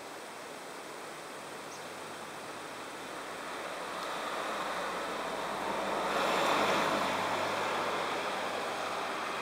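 A vehicle passing on the road, its noise swelling to a peak about six and a half seconds in and then fading away.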